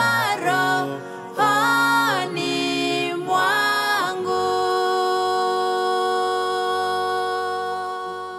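Gospel song ending: sung phrases with sliding notes over a steady accompaniment, then a long held chord from about four seconds in that fades away near the end.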